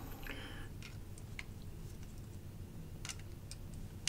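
Faint, scattered small ticks and clicks of a screwdriver bit working the small screws in a folding knife's handle scales, with metal parts lightly knocking as the knife is handled.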